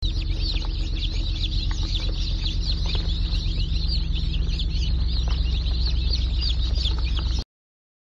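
A crowd of baby chicks peeping constantly in a dense chorus of short high-pitched cheeps, over a steady low hum. The sound cuts off suddenly near the end.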